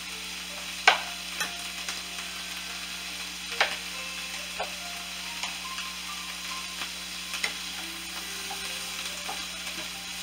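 Diced onions and green bell peppers sautéing in butter in a frying pan: a steady sizzle with occasional sharp pops and crackles, the loudest about a second in.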